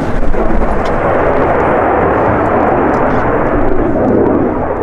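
Leonardo T-346A (M-346) jet trainer's twin Honeywell F124 turbofans at high power as the jet flies a display manoeuvre overhead: a loud, steady, rough jet roar.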